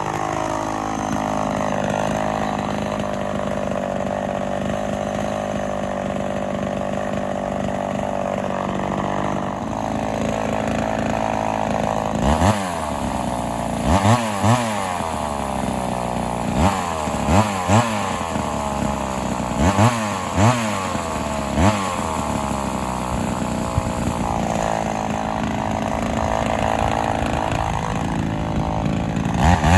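Vintage Homelite XL-400 two-stroke chainsaw running at a steady speed, then blipped about ten times in quick rises and falls of revs, then steady again before revving high at the very end.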